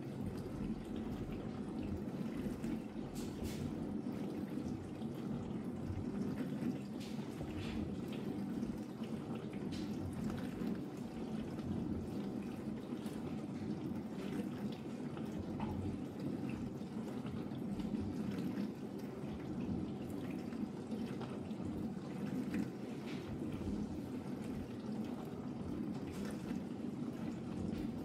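Ariston dishwasher running its test programme: a steady sound of water rushing and splashing inside the tub, with scattered faint drips.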